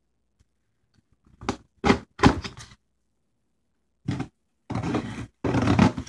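Cardboard shipping box being handled and set down on a wooden table: a series of thumps and scraping rustles that begin about a second and a half in, with longer scrapes near the end.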